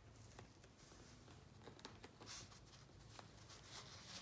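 Faint rustle and crackle of KT tape being wrapped and pressed around a nylon dog booty, with small clicks and two brief scratchy swishes, one about two seconds in and one near the end.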